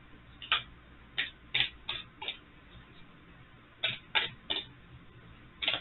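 Tarot cards handled in the hands as the deck is shuffled: short, crisp card taps and snaps, mostly in quick clusters of two or three.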